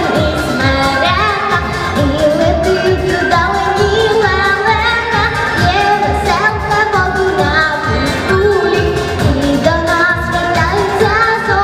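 A girl singing a melody into a handheld microphone over instrumental accompaniment with a steady beat.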